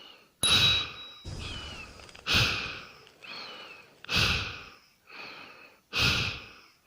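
A person breathing hard and heavily. There are four strong breaths about two seconds apart, each starting sharply and fading away, with a softer breath between each that has a faint whistling tone.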